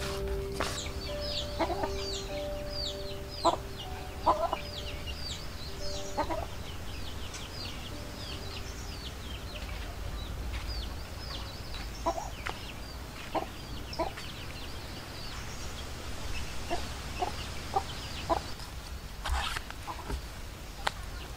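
Chickens calling: a steady run of short, high, falling peeps with occasional lower clucks.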